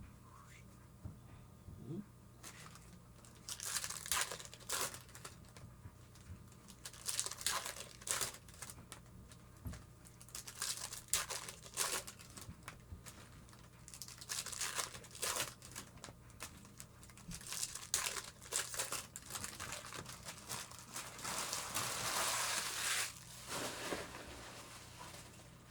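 Plastic foil wrappers of baseball card packs being torn open and crinkled by hand, in irregular bursts of crackling with a longer stretch of crinkling near the end.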